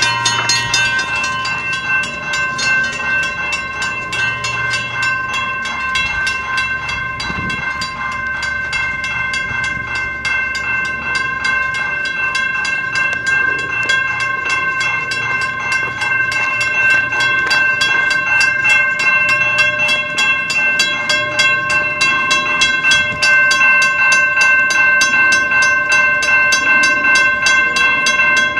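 Mechanical railroad crossing bells ringing steadily in rapid, even strokes, each stroke leaving a sustained ringing tone. The crossing is falsely activated, with no train present, because the island circuit is detecting something that isn't there.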